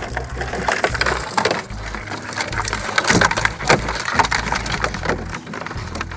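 Wire-mesh crab trap being handled and shaken, its metal frame and netting rattling and scraping as live crabs inside clatter against it: a quick, irregular string of clicks and knocks.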